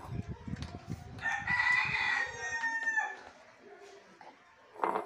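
A rooster crows once, a single long call of about two seconds. Before it comes a rapid low crunching from two cats chewing dry kibble out of a glass bowl, and near the end there is a short sharp noise.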